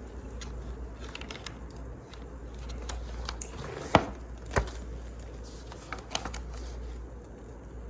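Wood fire crackling over a steady low rumble, with scattered sharp snaps and two louder pops about four and four and a half seconds in.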